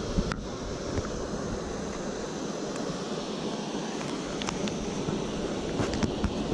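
Steady rushing outdoor noise, with a few faint clicks in the second half.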